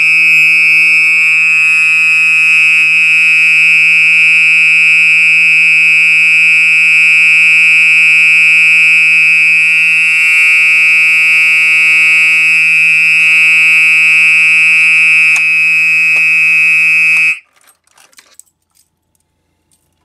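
Older Gentex SHG fire alarm horn sounding a loud, steady continuous tone, set off from a manual pull station. It cuts off suddenly about 17 seconds in, when the pull station is reset.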